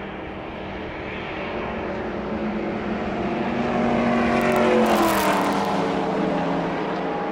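A racing engine running at high revs, growing louder as it approaches, then passing about five seconds in with its pitch dropping as it goes by.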